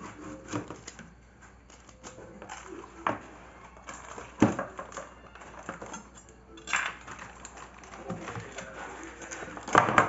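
A knife and handling knocking and scraping against a metal baking pan: a few scattered metallic clinks and knocks as a baked brownie is loosened from the pan, the loudest near the end.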